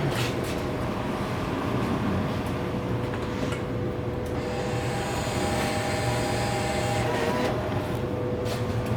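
Steady mechanical hum from an open Vendo 511 soda vending machine, with a small electric motor whirring for about three seconds in the middle, as a vend motor is test-run to trace a selection stuck on sold out.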